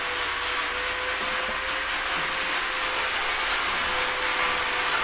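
Electric angle grinder running steadily: a constant whine over a broad hiss.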